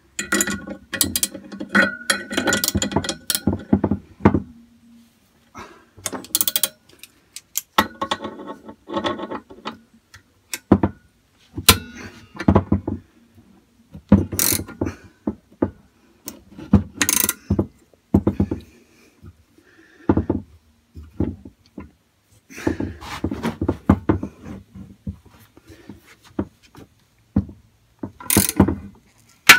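Socket ratchet clicking in irregular runs of strokes, with metal clinks between them, as the nut on a homemade bolt-and-socket puller is wound down to draw a silent block engine-mount bush out of its casing.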